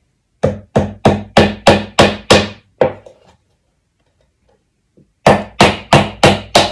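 Hammer driving a nail into a wooden birdhouse board: a run of eight quick, even blows, about three a second, a pause, then a second run of five blows near the end.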